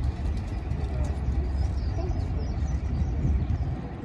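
Low, steady diesel rumble of an approaching Class 31 locomotive, with no sharp events.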